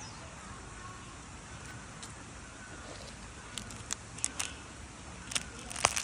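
Plastic food wrapper crinkling in short, sharp crackles that start about halfway through and grow strongest near the end, over a steady faint hiss.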